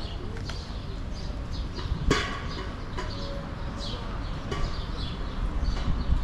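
Outdoor city ambience: small birds chirping repeatedly over a steady low rumble of traffic, with one sharp knock about two seconds in.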